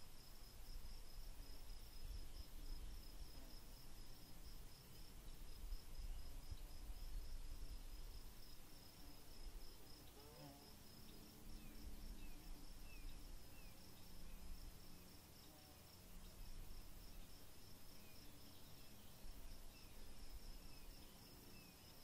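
Faint forest ambience: an insect trilling steadily in a fast, even pulse at a high pitch, over a low rumble, with a few faint short chirps in the second half.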